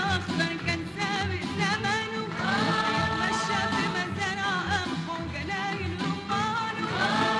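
Woman singing an Egyptian patriotic song over musical accompaniment, in a wavering, ornamented line with long held notes about two seconds in and again near the end.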